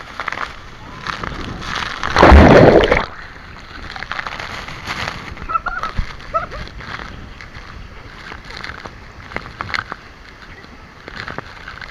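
Water splashing and sloshing as people bathe in a waterfall pool, with one loud splash about two seconds in. Faint voices call out now and then.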